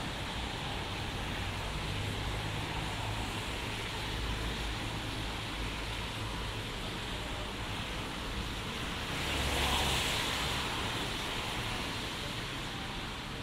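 Steady traffic ambience of a rain-wet city street, with the hiss of wet road surface. A car passes close on the wet road about ten seconds in, its tyre noise swelling and fading.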